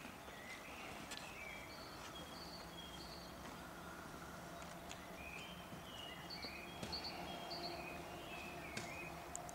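Faint background noise with a small bird singing: runs of short, high chirped notes, and a few faint clicks.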